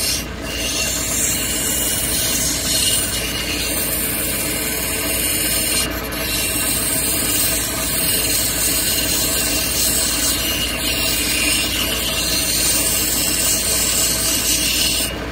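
A plume agate stone held against the turning wheel of a cabochon grinding machine, grinding with a steady rasp over a low motor hum. The rasp breaks off briefly about six seconds in and again near the end.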